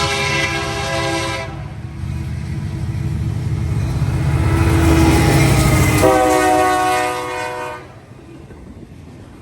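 Union Pacific SD70M diesel locomotive passing, its air horn sounding a chord that stops about a second and a half in, then a second blast about six seconds in lasting nearly two seconds. Under the horn runs the heavy rumble of the locomotive's two-stroke V16 diesel and its wheels, dropping away near the end.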